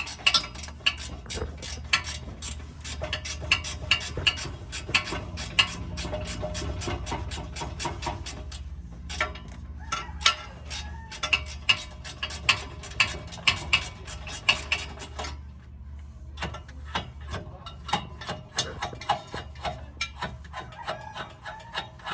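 Socket ratchet clicking in quick runs as bolts on the exhaust and catalytic converters are worked loose, pausing briefly twice, over a steady low hum.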